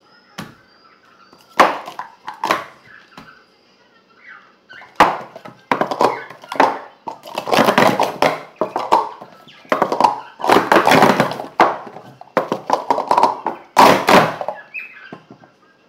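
Plastic sport-stacking cups clattering and clicking on a table as they are stacked up and down at speed through a timed cycle. A few single knocks come first, then dense runs of rapid clatter from about five seconds in until shortly before the end.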